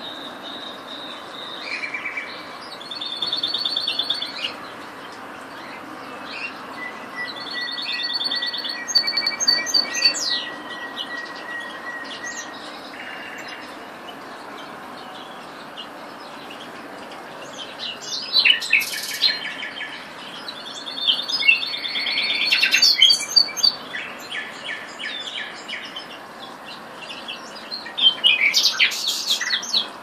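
Common nightingale singing in separate varied phrases of fast repeated notes and trills, with pauses between them and one long steady whistled note partway through.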